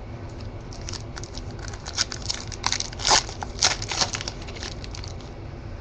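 Foil trading-card pack being torn open by hand: the wrapper crinkles and crackles in a quick irregular run, loudest about three seconds in.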